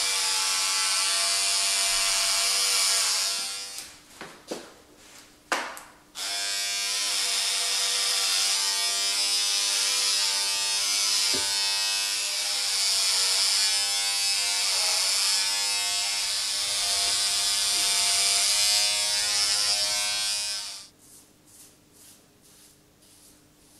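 Corded electric hair clippers buzzing steadily as they shave hair off a head. They stop after about three and a half seconds for a few seconds with a couple of sharp clicks, then buzz again until switching off about twenty seconds in.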